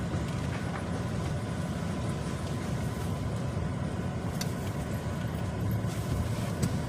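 Steady low rumble of a motor vehicle running, with a couple of faint clicks.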